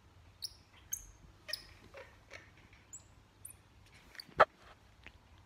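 Squirrel monkey giving a string of short, high-pitched chirps, a few of them in the first two seconds and more spaced out after. A single sharp knock about four seconds in is the loudest sound.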